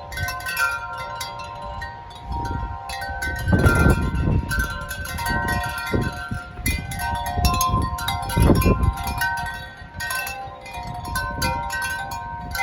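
Wind chimes ringing constantly in strong wind, many notes overlapping, with gusts of wind rumbling on the microphone that swell loudest about four and eight and a half seconds in.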